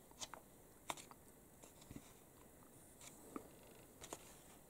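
Near silence with a handful of faint, short ticks and rustles of fingers handling glossy magazine pages.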